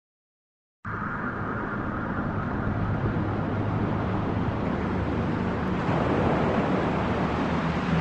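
A steady rushing background noise with a low hum underneath, starting about a second in.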